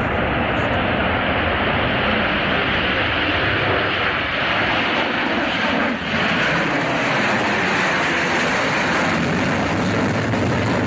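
Tupolev Tu-160's four NK-32 afterburning turbofans at full afterburner on takeoff: a loud, steady jet roar, with a brief dip about six seconds in.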